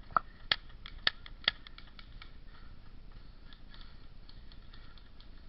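Airsoft gunfire: four sharp snapping shots in about a second and a half, followed by faint scattered ticking.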